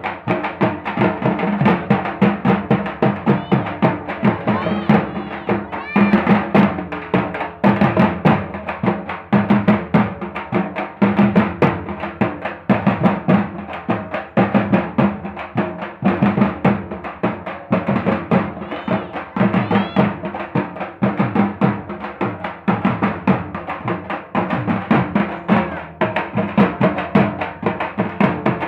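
Dhak, the large Bengali barrel drums beaten with sticks, several played together in a fast, steady, dense rhythm that runs on without a break.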